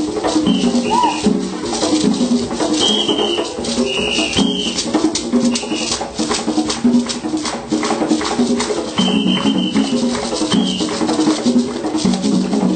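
Lively rhythmic music with rattling percussion and a repeating pattern of low pitched notes, with short high notes now and then.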